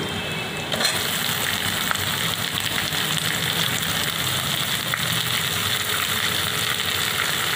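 Sliced onions frying in hot oil in a wok, a steady sizzle that jumps louder about a second in as the onions hit the oil.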